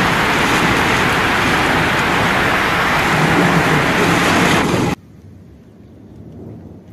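Heavy rain and gusting wind in a storm downpour: a loud, steady rush of noise that cuts off suddenly about five seconds in, leaving only faint noise.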